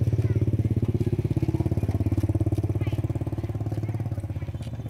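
Small motorcycle engine running close by with a fast, even throb, slowly getting quieter toward the end.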